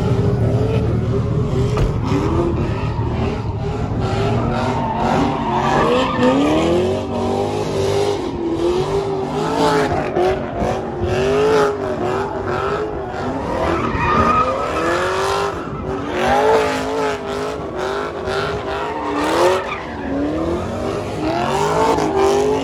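Drift car sliding: the engine revs up and down again and again while the tires screech.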